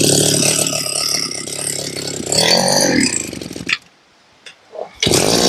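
Two-stroke engine of a 35 cc Makita brush cutter running at high throttle, its pitch swinging up and down about two and a half seconds in before it dies away. After a short pause the engine is running loudly again near the end.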